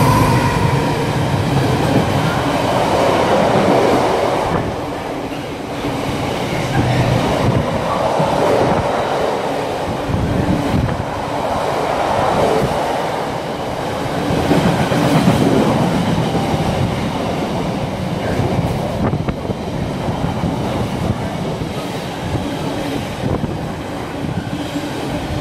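Intermodal container freight train running through at speed: a continuous rumble and clatter of wagon wheels on the rails as the container flats pass close by.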